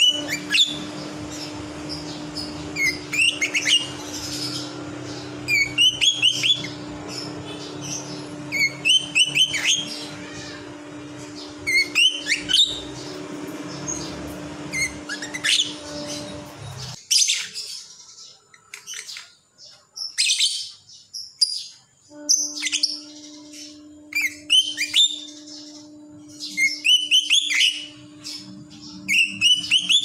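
Lovebird chattering in short, high-pitched twittering bursts about every three seconds, given while it sleeps with its head tucked in. A steady low hum runs beneath and drops out for a few seconds a little past the middle.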